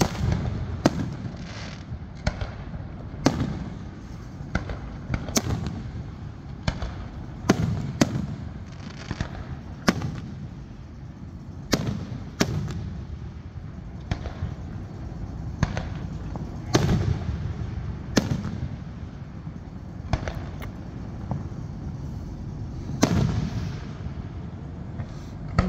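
Fireworks display: a string of sharp bangs from bursting shells at irregular intervals, often a second or two apart. Several are followed by a deeper rumbling boom that trails off.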